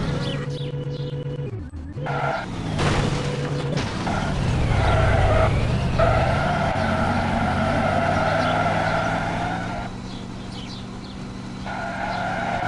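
Engine sound revving up and down in pitch, with several sudden cuts where the sound changes abruptly.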